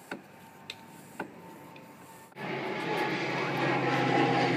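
A floor bike pump being worked by hand, a click with each stroke about every half second. About halfway through, a much louder steady engine drone with a low hum starts abruptly.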